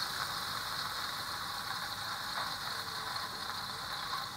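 Beef steak sizzling in fat in a nonstick frying pan, a steady fine crackle, as it finishes cooking through to well done.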